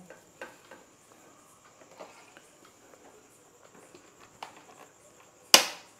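Electric sandwich toaster being shut: a few faint plastic knocks as the lid is lowered and handled, then the latch snapping closed with one sharp click near the end.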